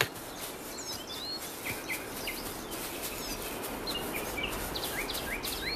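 Forest ambience of small songbirds chirping: many short high chirps and whistles, some sliding in pitch, scattered over a steady background hiss.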